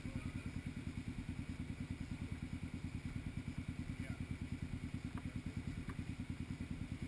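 A vehicle engine idling steadily with an even low pulse of about ten beats a second, not revving.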